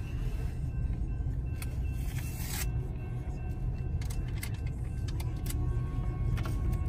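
Freight train of tank cars rolling past at a grade crossing, heard from inside a car: a steady low rumble with irregular clacks and knocks from the wheels.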